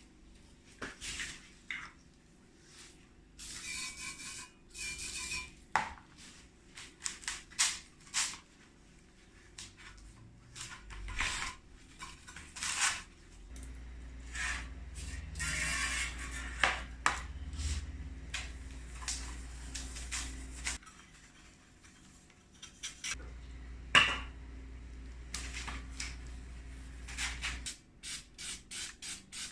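Metal brackets and packaging being handled: scattered clinks, knocks and rustles, with a low hum for stretches in the middle and a quick, even run of rattles near the end.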